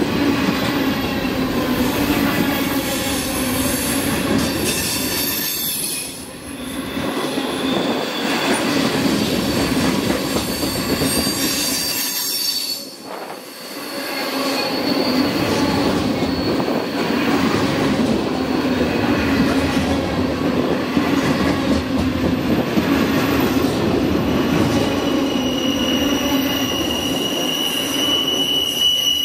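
Freight train cars rolling past, wheels running over the rails with high wheel squeal. The noise dips briefly twice, about six and thirteen seconds in, and a steady squealing tone comes in near the end.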